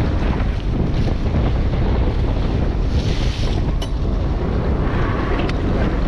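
Wind buffeting the microphone over open sea, with waves splashing against the side of the boat. A brief hiss of splashing water comes about halfway through, followed by a single small click.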